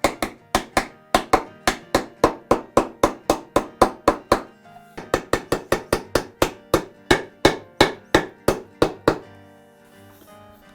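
Rapid, evenly spaced hammer strikes, about four a second, with a short pause about halfway through, over background music.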